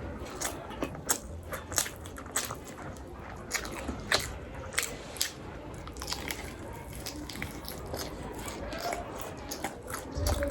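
Close-miked eating of chicken leg and rice: biting and chewing, with many sharp, irregular wet mouth clicks and a little crunch.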